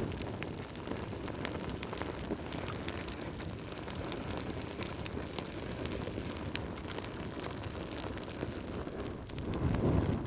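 Wood fire crackling in a fireplace: frequent sharp pops and snaps over a steady low rush of burning, with a louder low whoosh near the end.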